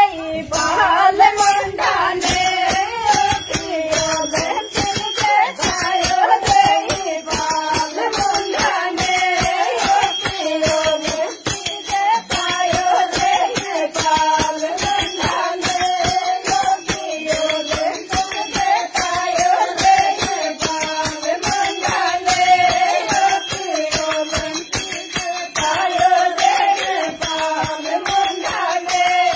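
Women singing a Meena folk song together, a repeating sung phrase over a steady jingling beat.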